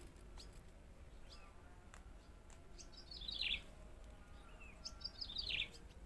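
A bird singing a short phrase of quick notes that fall in pitch, twice, about three and five seconds in, over a faint low background rumble.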